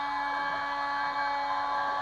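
Kress FME 800 spindle on a Stepcraft 2/420 CNC machine running steadily while milling aluminium: an even whine made of several held tones over a hiss, with no change in speed or load.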